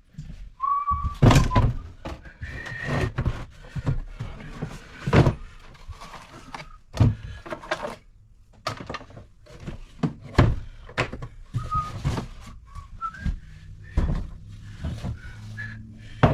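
A person whistling a few short, scattered notes over a series of knocks and thuds.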